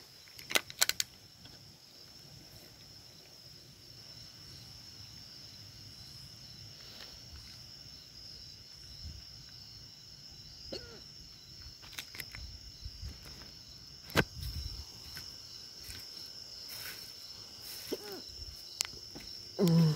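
Crickets trilling steadily, a continuous high-pitched hum, with a few sharp clicks and knocks scattered through.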